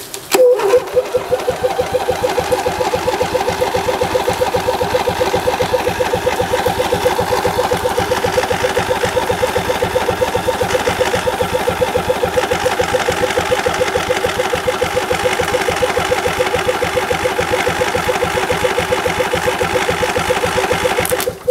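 Electric starter cranking a rebuilt Briggs & Stratton Intek I/C 20 HP engine in an even, fast rhythm for about twenty seconds without it firing, cutting off abruptly near the end. The owner suspects the fuel shutoff solenoid is clicking but not letting fuel in.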